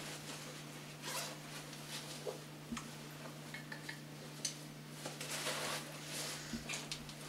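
Soft rustling of clothing and socks with a few small handling clicks as a person pulls on socks and shoes, over a steady low hum.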